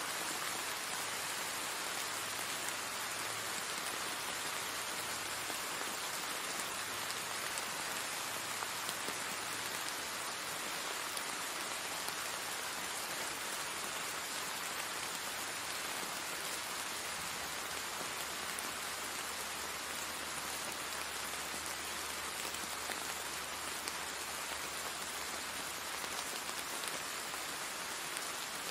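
Steady rain falling on wet paving stones and garden plants, an even hiss of many drops splashing.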